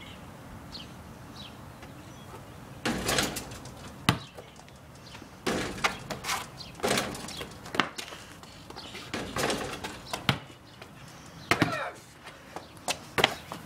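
Irregular thuds and knocks of a basketball bouncing on a concrete driveway and striking a hoop, about a dozen in all and spaced unevenly.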